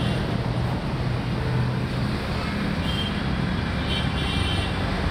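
Steady road traffic noise, with the low hum of a running engine.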